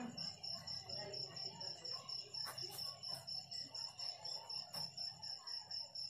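Cricket chirping steadily, a faint high trill pulsing about four to five times a second, with faint pen-on-paper writing sounds beneath it.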